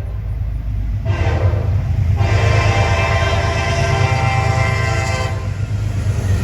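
Diesel freight locomotive's air horn sounding a short blast and then a long blast, over the steady low rumble of the locomotive and train.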